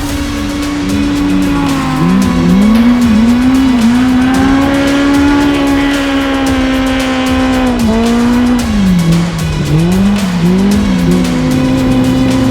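Side-by-side off-road racer engines: one held at a steady high pitch while another revs up and down repeatedly, with a sharp drop and recovery about eight seconds in.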